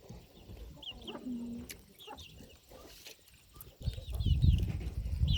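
Baby chicks peeping: short, high, falling cheeps in small clusters. A low rumbling noise rises about four seconds in and runs alongside the last cheeps.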